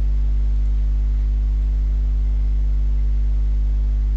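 Steady electrical mains hum with a row of overtones above it, a constant low drone picked up by the recording chain.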